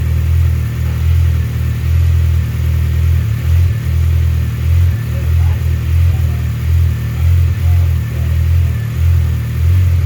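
Freshly rebuilt turbocharged Honda D16Z6 1.6-litre SOHC four-cylinder running cold just after its first start, a low idle that swells and dips unevenly.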